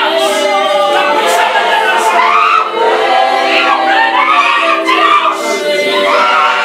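A church congregation singing together without instruments, many voices in chorus.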